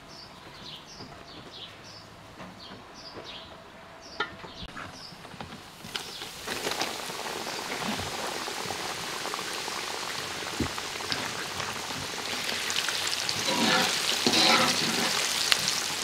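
Small birds chirping, short falling calls about twice a second, for the first five seconds or so. Then pieces of beef liver start sizzling as they deep-fry in hot oil in a large metal cauldron, a steady frying hiss that grows louder near the end as a wire skimmer stirs them.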